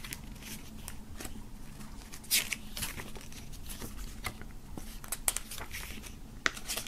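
Glossy paper pages of a CD booklet being turned by hand: scattered soft rustles and flicks, the sharpest about two and a half seconds in.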